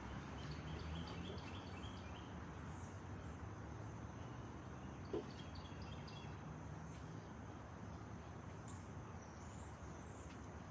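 Quiet outdoor ambience: a low steady rumble with faint, short high chirps in two clusters, near the start and about halfway through, and a single soft click about five seconds in.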